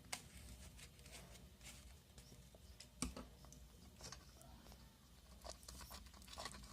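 Faint scattered clicks and taps of a utensil and container as activator is added to silicone-glue slime, with one sharper tap about three seconds in.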